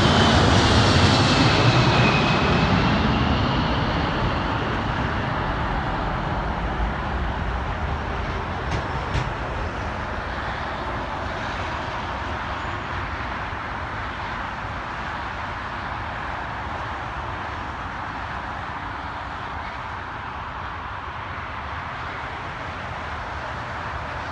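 Boeing 747 Dreamlifter's four jet engines passing close by, their whine falling in pitch over the first few seconds. The sound then fades slowly into a steady, distant rumble as the landed aircraft moves away.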